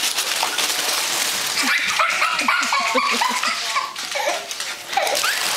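Crinkly rustling of a plastic bag being tugged by a small dog, then a person laughing in a quick run of short ha-ha sounds for a couple of seconds.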